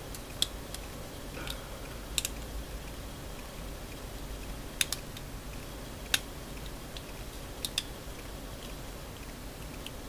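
Small plastic model-kit wing parts clicking and tapping against each other as they are handled and pressed together to snap them in place: scattered sharp clicks, irregularly spaced, over a faint low hum.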